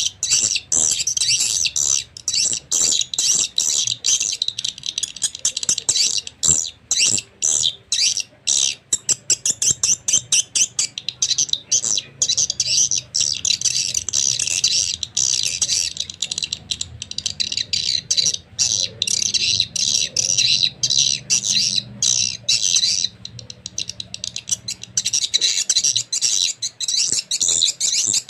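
Recorded swiftlet call sound played loud through a pair of horn tweeters: a continuous, dense, high-pitched chirping and twittering.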